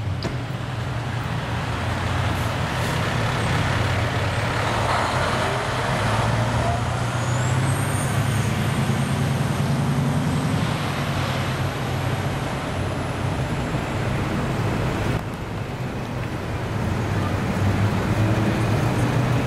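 Diesel engine of parked fire apparatus running steadily with a constant low hum, briefly dipping about fifteen seconds in, while a faint high whine rises and fades in the middle.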